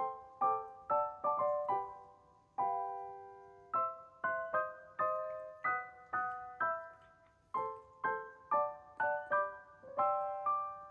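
Background music: solo piano playing a gentle melody of single struck notes, a few a second, each ringing and fading.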